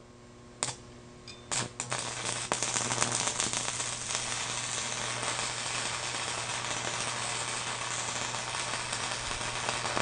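DC stick-welding arc from a homemade microwave-oven-transformer welder burning a 1/16-inch electrode on 1/8-inch steel plate. A couple of sharp snaps about half a second and a second and a half in as the arc is struck, then a steady dense crackle that cuts off abruptly at the end. A low steady hum from the welder runs underneath.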